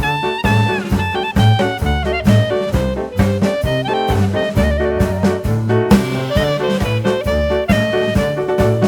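Background music: upbeat jazz with horns over a steady, regular beat.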